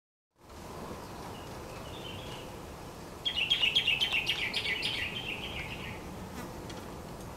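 An insect buzzing in a fast pulsing trill for about three seconds, starting about three seconds in, over a faint steady outdoor background.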